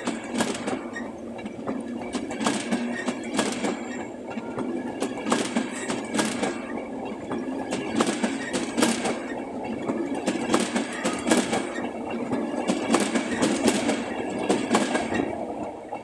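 An InterCity 225 train of Mark 4 coaches passing close by: its wheels give clusters of quick clicks over the track about every second or so as each coach's bogies go over, above a steady rumble. The sound falls away as the last vehicle passes, at the very end.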